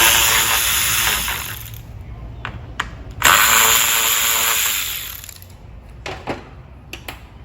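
Power tool spinning out two 10 mm bolts on the radiator and fan assembly, in two runs of about two seconds each, followed by a couple of short clicks.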